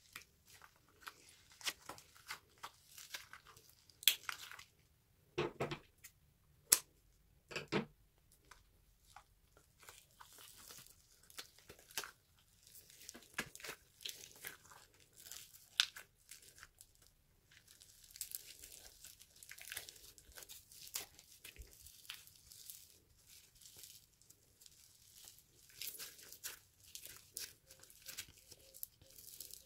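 Foam-bead-covered squishy stress toy being squeezed and torn apart by hand: its stretchy rubber skin tears while the tiny foam beads crunch and crinkle in irregular sharp crackles. A few louder snaps come in the first eight seconds, and the crackling grows denser in the second half.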